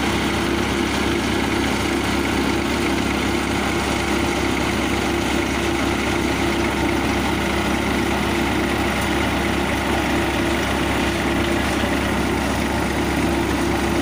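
Tractor-powered mustard thresher running at a steady speed, with a constant mechanical hum from the machine and the tractor engine driving it.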